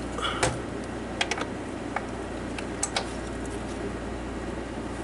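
Scattered sharp metallic clicks and taps of a wrench on the drive chain's idler sprocket bolt as it is tightened, over a steady low hum.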